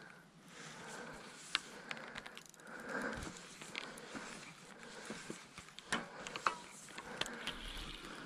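Close handling noise from hands working fishing tackle: rustling broken by scattered small clicks and sharp taps, the sharpest a little after the middle.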